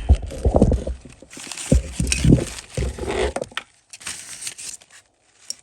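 Hands rummaging through loose pieces of heat shrink tubing and other small bits, with an irregular clatter of light clicks and rustling. It is busiest over the first three and a half seconds, then thins to a few fainter clicks.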